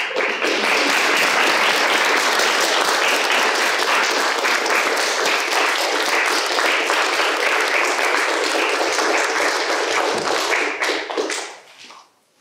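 A small audience clapping and applauding. The applause starts all at once, holds steady, and dies away about eleven seconds in.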